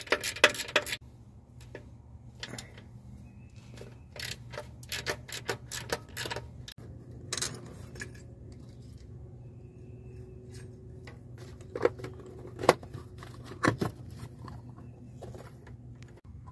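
Ratchet with a half-inch deep socket clicking, and metal clinking, as the nuts holding a clutch slave cylinder to a manual transmission's bell housing are undone. The clicks come in short clusters, with a steady low hum underneath.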